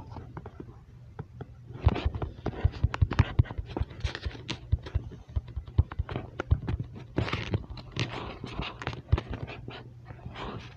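Fox chewing fish: a dense run of irregular wet crunches and smacks starting about two seconds in and thinning out near the end, over a steady low hum.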